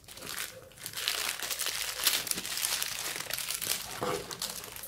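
Plastic bubble-wrap packaging crinkling and crackling as hands handle it and pull it open around a camera lens.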